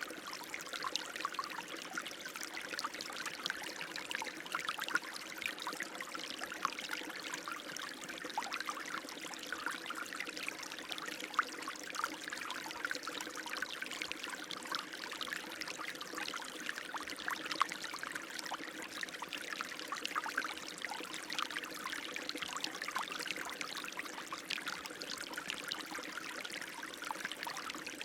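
Running water flowing steadily: a constant rush with many small splashes and trickles running through it.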